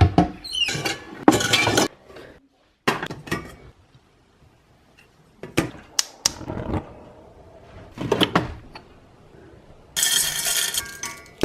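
Kitchen clatter from stovetop popcorn-making: a pot, its lid and utensils clinking and knocking in a series of short separate bursts, then a denser rattling for about a second near the end.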